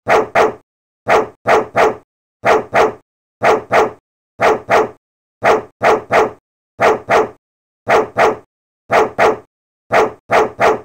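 A dog barking in pairs, two quick woofs each time, repeated about once a second in an even, unchanging rhythm with silence between, like a looped bark sound effect.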